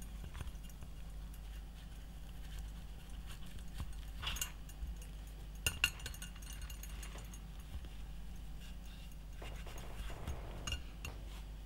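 Faint handling noise of a Kovea gas lantern's metal parts: scattered light clicks and clinks as the mantle is tied onto the burner, with a few sharper clicks about four and six seconds in.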